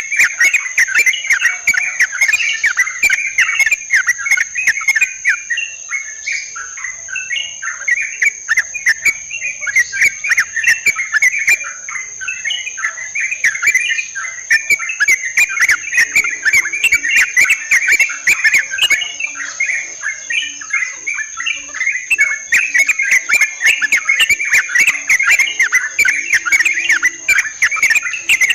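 Yellow-vented bulbuls (trucukan) chattering in a dense, continuous chorus of quick notes, over a steady high-pitched insect whine with scattered sharp clicks.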